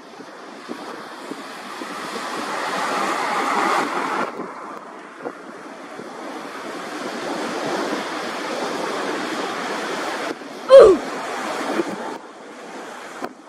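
Learjet 45's twin turbofan engines on approach and landing, heard from a distance through heavy wind noise on the microphone. About two-thirds of the way in, a short, loud tyre screech falling in pitch, with a thump, marks the main wheels hitting the runway in a hard landing.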